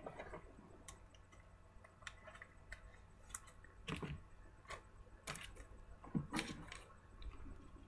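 Trading cards being handled and sorted by hand, with scattered light clicks and taps of card stock, a few of them sharper.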